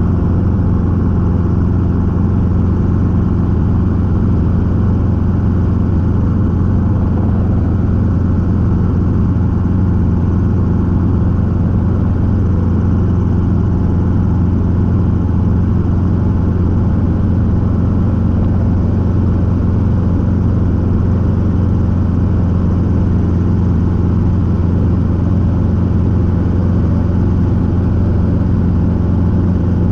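Robinson R22 helicopter in flight: its four-cylinder piston engine and rotors make a loud, steady drone that does not change.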